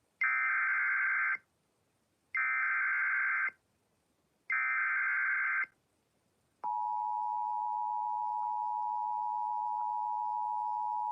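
Emergency Alert System signal: three bursts of SAME header data, each about a second long with a second's gap between them, encoding a severe thunderstorm warning. Then, about six and a half seconds in, the steady two-tone EAS attention signal (853 and 960 Hz) starts.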